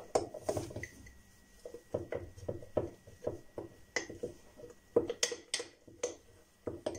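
A spoon stirring thick rye flour-and-water sourdough starter in a glass jar, scraping dry flour up from the bottom, with irregular clinks and scrapes against the glass, the sharpest about four and five seconds in.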